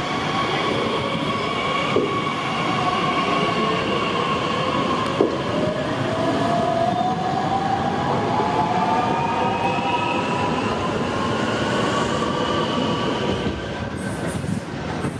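A DB Class 442 Talent 2 electric multiple unit passing close by, with wheel-on-rail rumble and the whine of its electric drive rising slowly in pitch. The sound falls off near the end as the train moves away.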